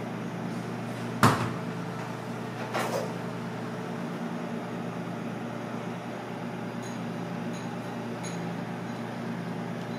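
A sharp knock about a second in and a softer knock near three seconds, over a steady low hum, with a few faint light clicks near the end.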